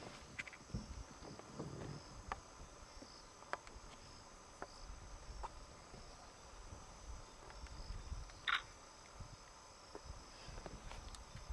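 Night insects, crickets, chirping steadily in a high even pulse, with scattered faint clicks and one short sharp click about eight and a half seconds in.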